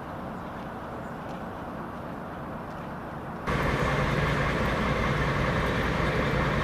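Diesel locomotive engine running steadily, stepping up abruptly about three and a half seconds in to a louder, closer steady engine note.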